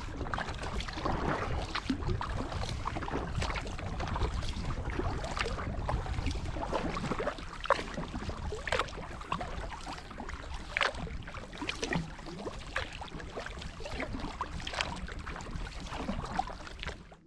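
Kayak paddling: a paddle dipping and splashing in the water again and again, with a steady low rumble of wind on the microphone. It cuts off abruptly at the end.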